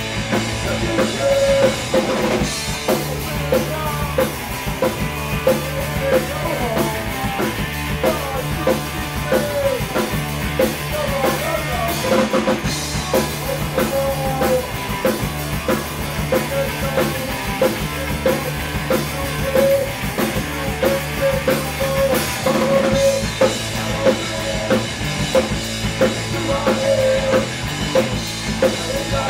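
Rock band playing live, with a drum kit keeping a steady driving beat under bass and electric guitar.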